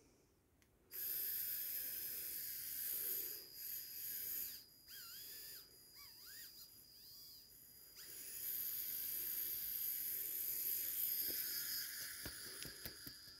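Small high-speed dental rotary handpiece running with a high-pitched whine, starting about a second in. In the middle it drops away a few times and its pitch wavers up and down, then it runs steadily again from about eight seconds until near the end.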